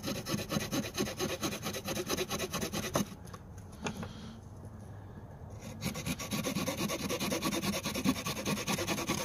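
Saw blade of a Victorinox Swiss Army Camper pocket knife sawing through hardwood in back-and-forth strokes. It stops for about three seconds partway through, then resumes.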